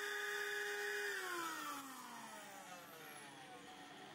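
Steady high whine from the HHO torch rig as it is shut down: about a second in, the whine slides down in pitch over two seconds and fades into a faint low hum.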